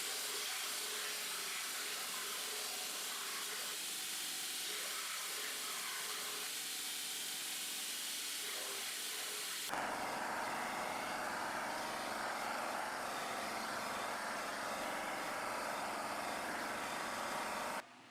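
Gas torch hissing steadily while heating the knife's spine to draw its temper back. The sound changes abruptly about ten seconds in to a brighter, more even hiss.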